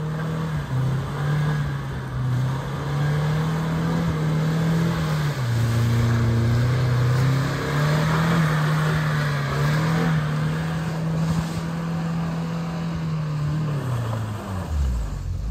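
UAZ Patriot SUV's engine working under load as the vehicle drives through deep mud ruts. The engine note holds fairly steady, drops lower for a couple of seconds around the middle, then sweeps down and back up near the end as the throttle changes.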